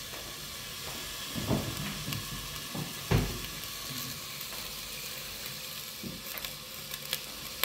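Chopped carrots, onion and parsley sizzling steadily in hot oil, the freshly washed vegetables making the oil spit. A couple of dull knocks, the loudest about three seconds in.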